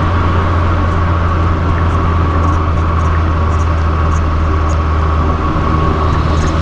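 Fiat 500 Abarth's turbocharged four-cylinder engine running through an MPx cat-back exhaust at a steady engine speed while driving: an even low drone with no revving.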